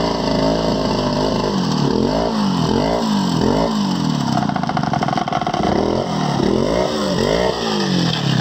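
Chainsaw engine revved up and down again and again, its pitch rising and falling about once or twice a second, with a steadier stretch in the middle.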